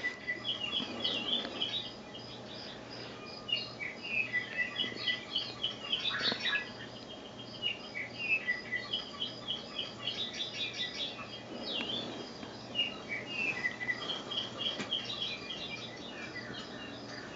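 Wild birdsong playing from a cat-entertainment DVD on a television: many quick chirps and short twittering calls from several birds, overlapping throughout. A faint low hum lies underneath.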